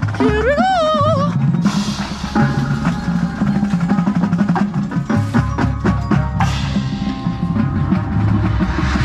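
Drum corps percussion playing a passage, with drum strikes and rolls over a low sustained chord, and no brass. About a quarter second in, a single wavering tone slides upward and then fades.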